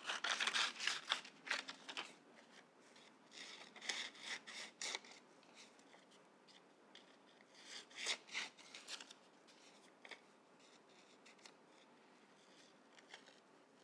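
Scissors snipping through paper in short clusters of cuts as a letter is cut out. The cuts come in bunches: in the first two seconds, around four seconds in, and around eight seconds in, with fainter snips near the end.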